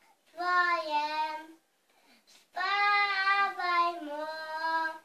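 A little girl singing a song alone, with no accompaniment, in two drawn-out phrases with a short pause between them.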